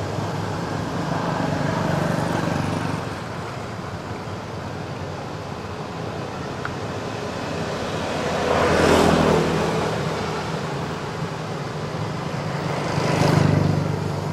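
Road traffic: motor vehicles pass by over a steady background of engine noise, with two of them swelling up and fading away, one about nine seconds in and one near the end.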